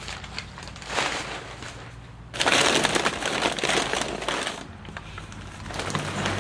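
Bubble wrap and crumpled packing paper crinkling and rustling as hands move them about inside a cardboard box, loudest from about two and a half to four and a half seconds in, over a faint steady low hum.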